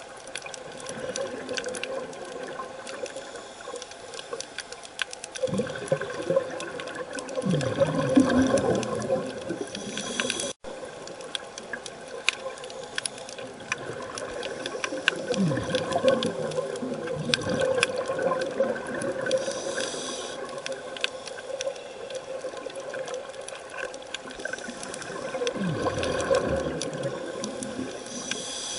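A scuba diver's breathing recorded underwater: bursts of exhaled regulator bubbles gurgle out about every ten seconds, with a short hiss of inhalation between them. Faint crackling clicks run underneath.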